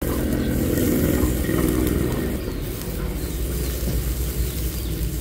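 A motor vehicle's engine running, its hum strongest in the first couple of seconds and then easing off, over a steady low rumble.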